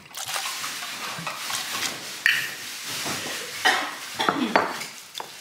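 Liquor being poured from a bottle into red plastic cups: a steady pouring hiss broken by several sharp clinks and knocks of the bottle and cups.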